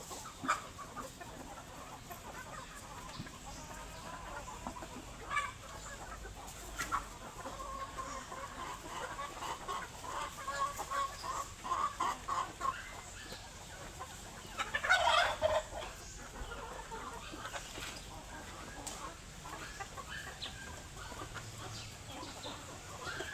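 Chickens clucking on and off, with a run of repeated clucks in the middle and one louder call about fifteen seconds in.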